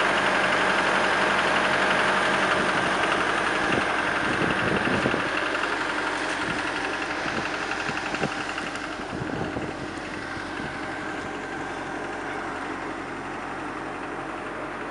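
Diesel engine of a Cat M315D wheeled excavator idling steadily, growing somewhat quieter about two-thirds of the way in.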